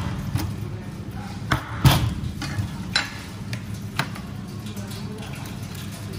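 Mallet blows on the back of a meat cleaver splitting a salmon head on a plastic cutting board: a few sharp knocks, the loudest about two seconds in, then a couple of lighter knocks near three and four seconds in. A steady low hum runs underneath.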